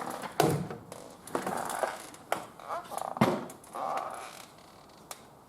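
Objects being handled and set down: a few sharp knocks, the loudest about half a second in, with scraping and rattling between them.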